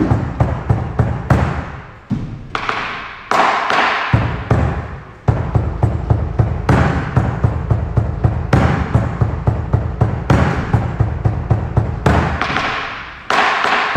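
Dance-class accompaniment music with a steady, quick beat, swelling louder twice.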